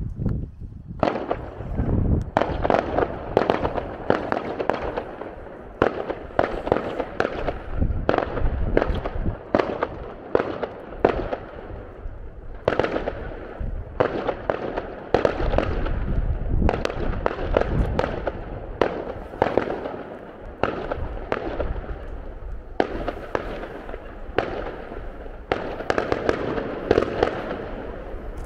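Fireworks display: a dense, irregular run of sharp bangs and crackling bursts, starting about a second in and keeping up without a break.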